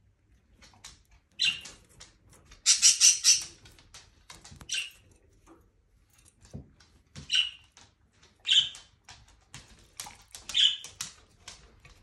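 Budgerigar giving about half a dozen short, harsh chirps, with one longer burst of chatter about three seconds in, and light clicks in between.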